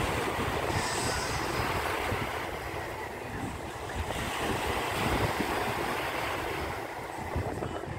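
Seaside ambience: a steady wash of surf, with wind buffeting the microphone in low rumbling gusts.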